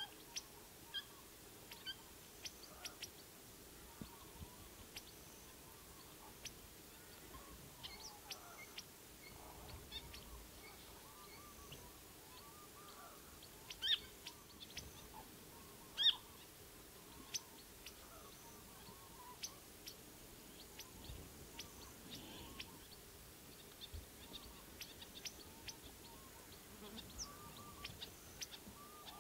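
Small finches calling at a waterhole: scattered short, high chirps, two of them louder about halfway through. Faint warbling birdsong sits lower in the background.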